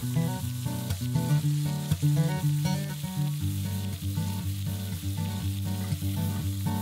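Ribeye steak sizzling steadily as it sears in a hot cast-iron skillet, left undisturbed. Acoustic guitar music plays over it, its notes louder than the sizzle.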